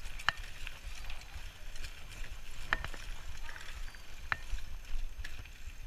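Bicycle rolling over a dirt and pine-straw trail, heard from a handlebar-mounted camera: a steady low rumble of tyres and wind, with a sharp rattling click from the bike every second or two over bumps.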